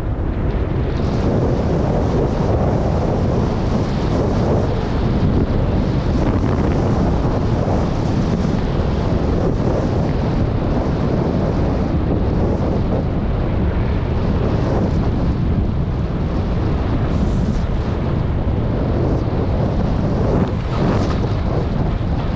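Wind rushing over the microphone of a skier's camera during a fast descent, a steady loud rumble, with skis hissing and scraping over packed groomed snow.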